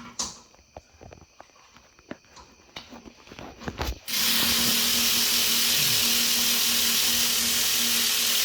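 Cordless electric ratchet spinning out a hub assembly bolt: light clicks and knocks of handling the tool, then the ratchet motor runs steadily at full speed for about four seconds and stops abruptly.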